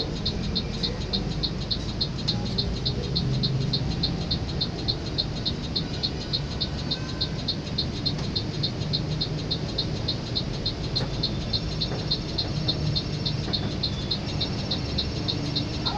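Low, steady rumble of a moving tour bus, overlaid by a high-pitched chirping that repeats evenly about three to four times a second.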